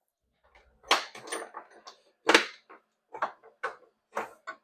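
Hard objects handled on a workbench: a run of sharp clicks and knocks, loudest about two seconds in.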